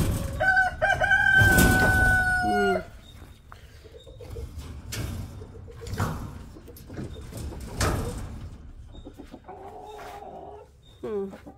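A chicken gives one loud, long call lasting about two seconds near the start, then quieter clucking follows. A few knocks come from the tree branch being handled.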